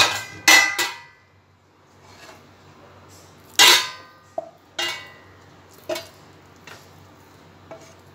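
Stainless steel plate clattering and briefly ringing as it is handled on the stove. Then the kadhai and a wooden spatula knock against it several times, loudest a few seconds in, as cooked peda dough is scraped out onto the plate.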